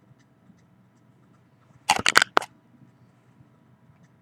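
Handling noise: a quick burst of four or so sharp rustling clicks about two seconds in, over a faint steady hum.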